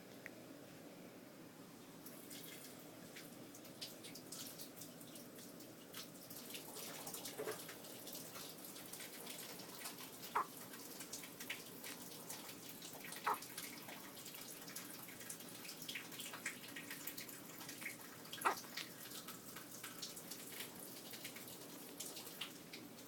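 Hiccups: four short, sharp hics a few seconds apart, over faint clicking and hiss.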